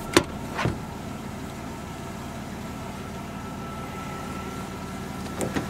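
A 1998 Plymouth Voyager minivan's engine idling steadily, heard from inside the cabin. There are a few short knocks in the first second as the seat armrest is handled.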